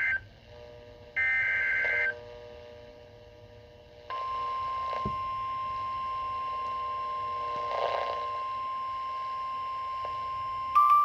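Emergency Alert System broadcast: the warbling SAME header data bursts, the last one lasting about a second, followed after a short pause by the steady single-pitch 1050 Hz NOAA Weather Radio attention tone. A short beep sounds over the tone near the end.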